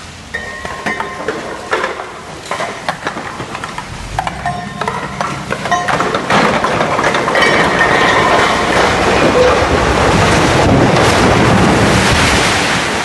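Excavation pit wall giving way: scattered cracks and knocks of falling debris, then from about six seconds in a loud, swelling rush and rumble of earth and rubble collapsing into the pit.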